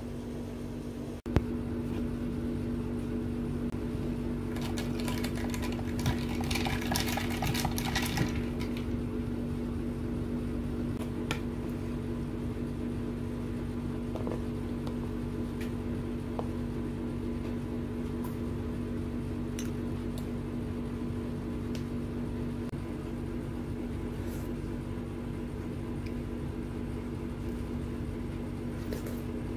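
A steady machine hum under spoon clinks and scraping against a bowl during eating: a sharp clink about a second in, a stretch of clattering around five to eight seconds in, and scattered single clinks after. Slurping of soup near the end.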